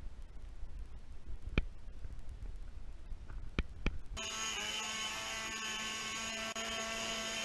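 A handheld leaf blower starts running steadily about four seconds in, a constant pitched whine that holds. Before it there is only faint low noise with a few sharp clicks.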